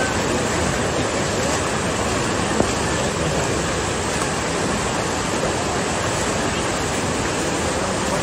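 Fast-flowing floodwater rushing steadily through a flooded street channel after a hurricane. A single brief knock comes about two and a half seconds in.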